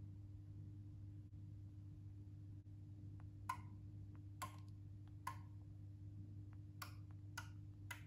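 Quiet low steady hum with a handful of short, light clicks in the second half, from a fingertip tapping through the Home app on a smartphone's touchscreen.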